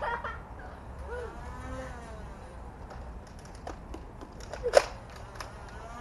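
A single sharp snap of a Nerf Rival blaster firing a foam round about three-quarters of the way in, amid scattered small clicks and a faint distant voice.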